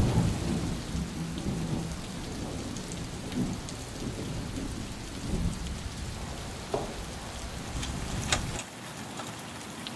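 Steady rain falling, with a low rumble of thunder under it that stops abruptly about eight and a half seconds in, leaving the rain; a couple of light clicks near the end.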